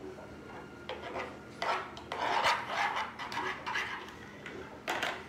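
Metal spoon stirring and scraping around a plastic bowl of shaving cream and lotion, in irregular rasping strokes that are densest in the middle, with one more sharp scrape near the end.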